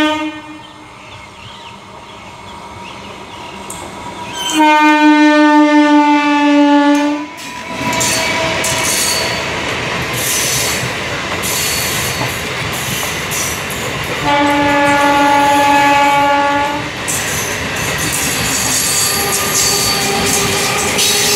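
MEMU passenger train sounding long horn blasts as it comes up and passes close by: one loud blast about four and a half seconds in, a second about fourteen seconds in. Between and after them the steady rumble and clatter of the coaches' wheels on the track.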